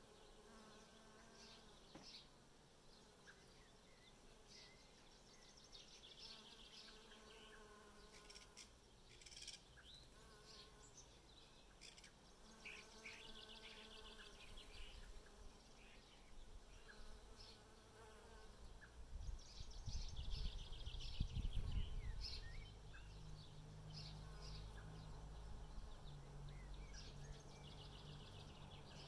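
Bees buzzing as they fly among the flowers, the drone coming and going every few seconds as they pass close and move off. A louder low rumble lasts a couple of seconds about twenty seconds in.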